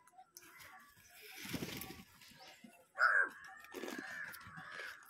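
House crows cawing: a loud, harsh caw about three seconds in, drawn out and followed by more calls. Before it, a brief rush of noise.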